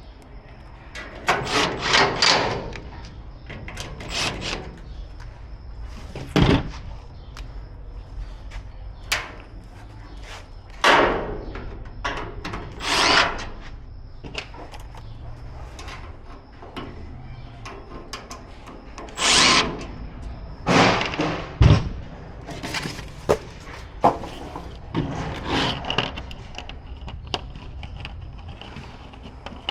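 Grill assembly work: irregular short bursts of handling noise and clatter from parts and tools, with two sharp knocks, one about six seconds in and a louder one a little past twenty seconds.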